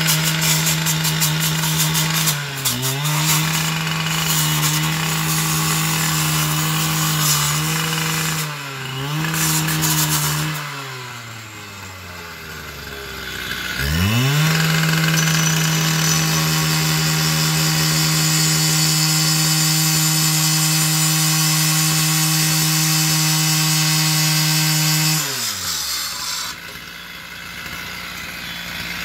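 Handheld two-stroke gas cut-off saw running at full throttle as its abrasive wheel cuts through a chain-link fence, a grinding hiss over the engine note, which dips briefly under load a few times. The engine falls to idle about ten seconds in, revs back up a few seconds later, and drops to idle again near the end.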